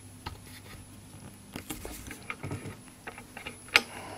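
Scattered small handling clicks and rustles, with one sharp click near the end, over a steady faint high whistle and low hum from a Pye 405-line valve television: the whistle is the set's line whistle from its line output stage.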